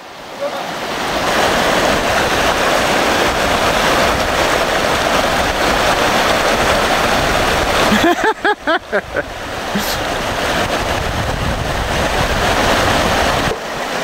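Shallow river rapids rushing over rocks and gravel: a loud, steady rush of water, broken briefly by a short voice about eight seconds in.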